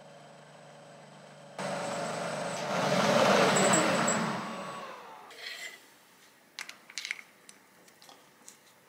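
A drilling machine's spindle motor starts about a second and a half in, runs briefly with a high whine, then is switched off and coasts down with falling pitch. Light metallic clicks and knocks follow as the drill chuck is handled.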